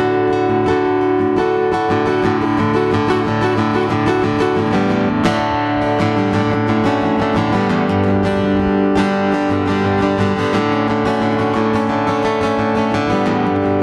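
Acoustic guitar playing an instrumental melody, single notes picked with some strummed chords.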